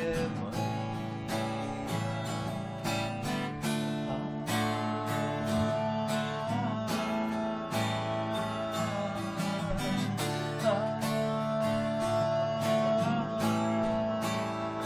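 Acoustic guitar strummed and picked in a steady rhythm, with a voice holding long sung notes without words over it.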